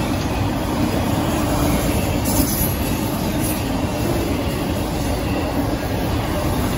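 Double-stack intermodal train's container-loaded well cars rolling past, a steady rumble of steel wheels on rail.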